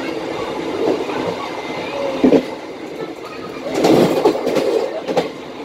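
Train running at about 80 km/h, heard from inside its cab: a steady rumble of wheels on rail, with a few knocks and a louder clatter about four seconds in.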